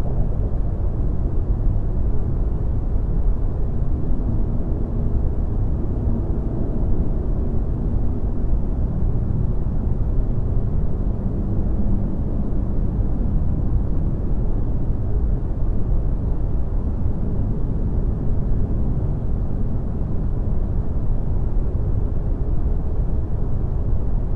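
Steady low rumbling noise, like a deep ambient drone, with faint held tones in it and no breaks.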